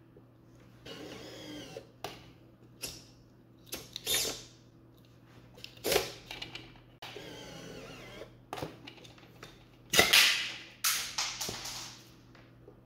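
Small electric motors of a scale model tank's autoloader whirring in two short runs, with sharp mechanical clicks and clacks as the loading mechanism cycles; the loudest clatter comes about ten seconds in.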